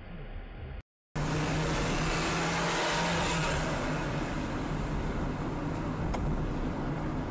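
Car driving, recorded by a dashcam: steady engine hum and road noise with a high hiss. It begins quieter and muffled, breaks off in a brief gap of silence about a second in, then comes back louder.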